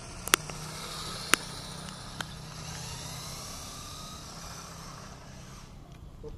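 Radio-controlled car's motor whining and gliding up and down in pitch as it drives off across asphalt. Three sharp clicks come in the first couple of seconds, over a steady low hum.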